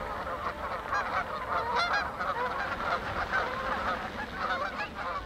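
A large flock of geese in flight, many birds calling at once in a dense, continuous chorus of overlapping short honks.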